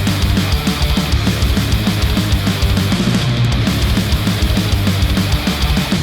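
Loud heavy rock music with distorted guitars and a fast, steady kick drum, played through open-back headphones and picked up by measurement microphones.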